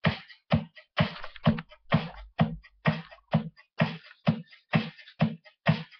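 Electronic dance music with a fast, steady drum-machine beat, about two beats a second, with a heavy bass pulse on each beat.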